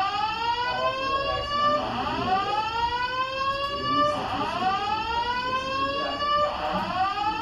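Office building fire alarm sounding its evacuation signal: a rising whoop tone that sweeps up in pitch and repeats about every two seconds.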